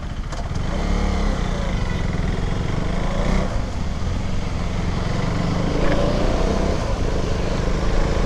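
KTM Duke 390's single-cylinder engine running under way on the road, heard as a steady low rumble.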